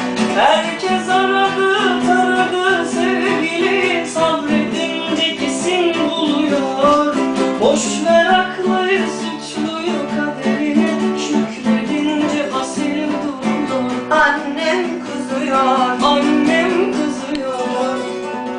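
Pop song outro: acoustic guitar and band accompaniment playing on after the last sung line, softening near the end.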